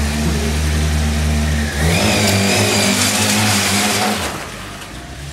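Honda CBR1000RR inline-four sportbike engine running steadily, then revved hard about two seconds in while the rear tyre spins in a burnout, with a wavering high squeal over the engine. The sound drops away after about four seconds.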